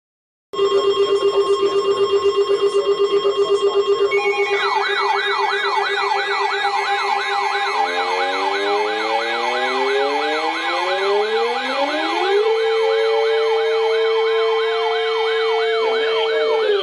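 Several warning sirens sounding together, starting suddenly: first a steady pulsing tone, then a fast up-and-down yelp of about three cycles a second joins in, and from about halfway several sirens wind up in pitch. One holds a steady note while another climbs higher and then winds down near the end.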